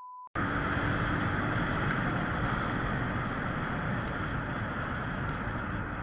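A steady high test-tone beep cuts off a moment in. A steady hiss of road and wind noise from a moving car's dashcam follows.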